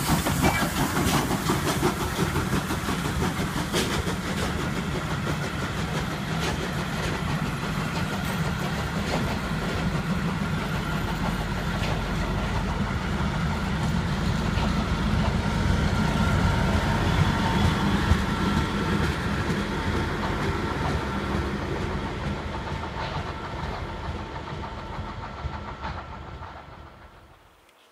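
FS Gr 740 steam locomotive getting its train under way, steam hissing from the cylinders, then a train of old passenger carriages rolling past with a steady heavy rumble. The sound fades out near the end.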